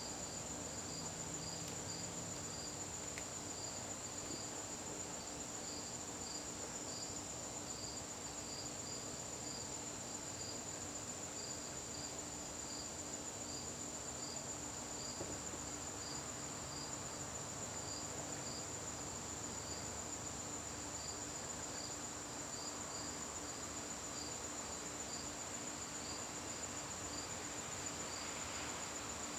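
Crickets singing at dusk: one holds a continuous high-pitched trill while another chirps in a steady, evenly spaced rhythm.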